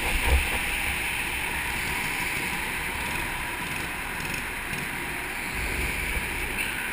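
Go-kart driving on an indoor track, heard from a camera mounted on the kart: a steady rushing noise of engine, tyres and wind on the microphone, with low buffeting rumbles near the start and again in the last second or so.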